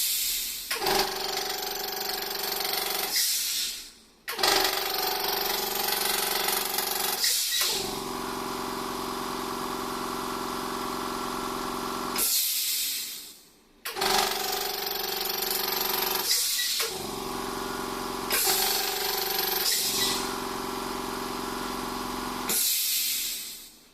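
A 2 hp four-cylinder quiet-type electric air compressor running with a steady hum, cutting out and starting again several times, with stretches of loud hissing air. It makes an abnormal noise that the owner suspects comes from a misaligned connecting rod.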